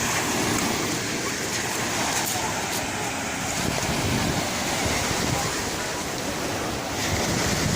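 Sea surf washing on a beach, a steady rushing noise, with indistinct voices in the background.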